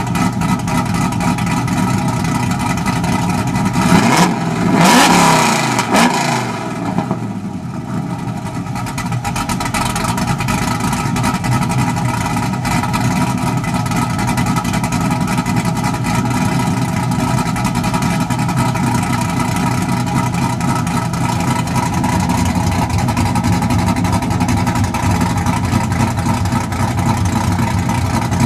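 Chevrolet Camaro SS V8 with an aftermarket cam, long-tube headers and full exhaust with electric cutouts, idling, with a short burst of revs about four seconds in before settling back to idle.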